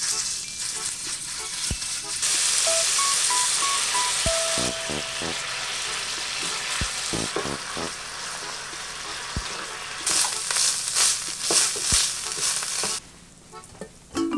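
Ground beef sizzling as it fries in sesame oil in a nonstick frying pan, stirred with a wooden spatula. The sizzle grows louder about two seconds in, quick scraping strokes of the spatula come near the end, and the frying noise stops suddenly about a second before the end.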